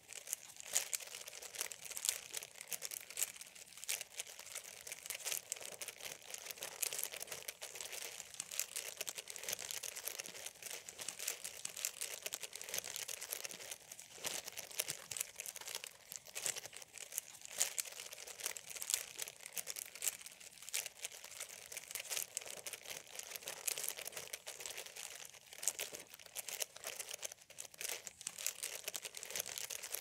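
Plastic bag being crumpled and handled without pause, a continuous stream of sharp crinkling crackles.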